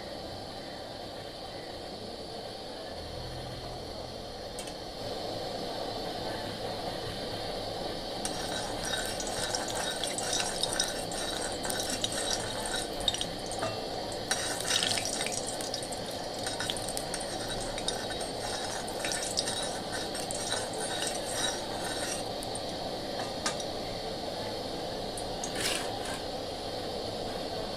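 Metal kadai being rinsed and cleaned with water, with splashing, dripping and clinks of the pan, over a steady kitchen hum; a single sharp clink comes near the end.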